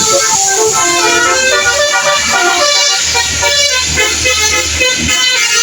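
Bus telolet basuri musical horns playing a tune of short notes that step up and down, several tones at once. A low engine hum joins in about three seconds in.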